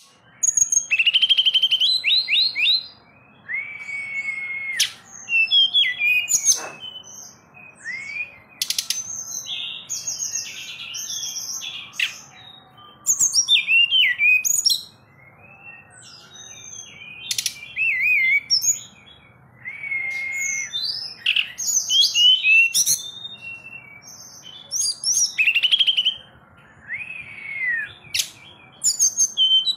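Caged tledekan gunung in full song: loud whistled phrases, some held notes and some sliding or quick trills, repeated with short pauses between them. A few sharp clicks fall between phrases.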